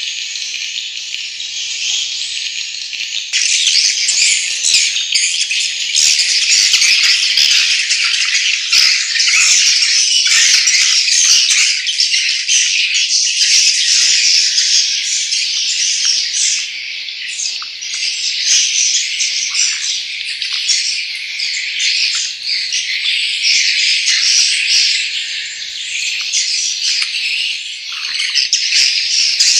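Dense, continuous chorus of edible-nest swiftlet chirps and buzzing trills. It gets louder and fuller about three seconds in.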